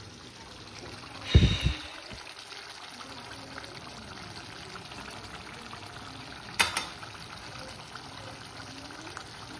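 Mutton curry bubbling steadily as it simmers in a metal pan on a gas stove. A heavy thump, the loudest sound, comes about a second and a half in, and a sharp knock comes about two-thirds of the way through.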